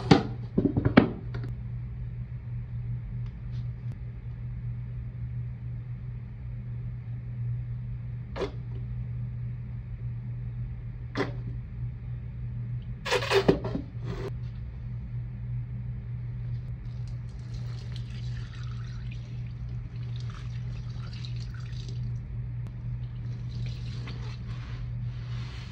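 A few sharp clicks and taps, then, from about two-thirds of the way in, the wet squishing of a soap-soaked sponge being squeezed by gloved hands. A steady low hum runs underneath.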